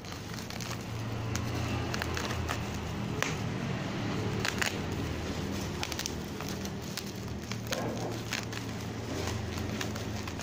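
Plastic wrapping and packing tape on a parcel crinkling and crackling as it is cut with scissors and turned over in the hands, with many small sharp clicks, over a steady low hum.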